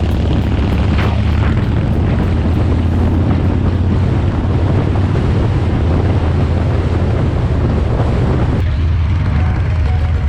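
Harley-Davidson V-twin motorcycle engine running steadily under way, with wind rushing over the microphone. The rushing eases about eight and a half seconds in.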